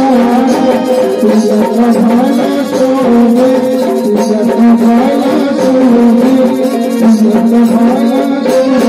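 Live Indian music: a man singing into a microphone over a harmonium's sustained reed tones, with a steady percussion beat.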